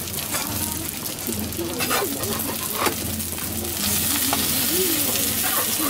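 Okonomiyaki sizzling on a flat steel griddle, with metal spatulas scraping and clicking against the plate a few times. The sizzle grows louder about four seconds in, as a pancake is turned with two spatulas.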